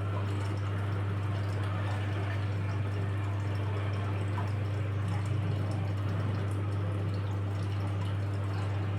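Washing machine running a wash cycle: water sloshing in the drum over a steady low motor hum.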